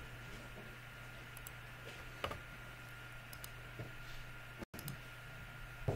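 A few sharp computer mouse clicks, spaced out, over a steady low electrical hum and a faint high tone. The sound cuts out for an instant about two-thirds of the way through.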